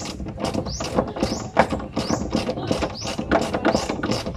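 Ratchet wrench being worked in short strokes on the strut's upper mounting bolts. It makes a quick run of rising clicks on each back-swing, about two to three strokes a second.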